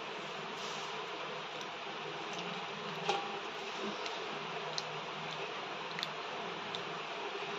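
Steady hiss with a low hum under it, with a light metallic clink about three seconds in and a few faint ticks.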